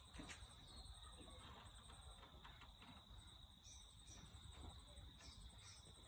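Near silence: faint outdoor background with a steady thin high tone and a few faint ticks.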